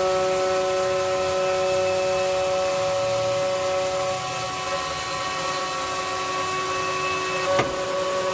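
Spindle motor of a stone CNC sink cut-out machine running steadily while cutting a sink hole in a stone countertop, a whine of several steady tones over a noisy hiss, the pitch mix shifting about halfway through. A single sharp knock near the end.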